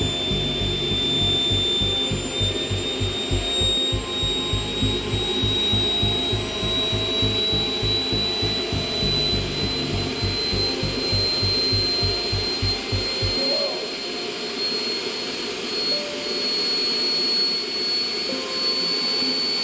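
Homemade electric jet engine running on a test stand: the electric compressor's whine rises slowly in pitch as the throttle is pushed up. A low rough pulsing runs under it and stops about two-thirds of the way through.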